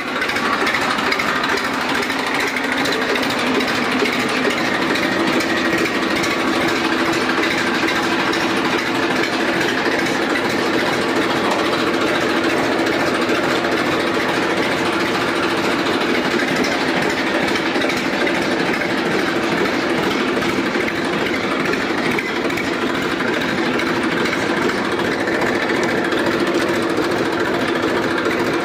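Massey Ferguson 1035 DI tractor's Simpson three-cylinder diesel engine running steadily at an even speed.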